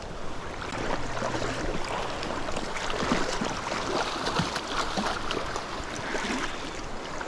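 Shallow creek riffle running, with irregular splashing of water around wading legs and a landing net dipped to scoop a hooked steelhead.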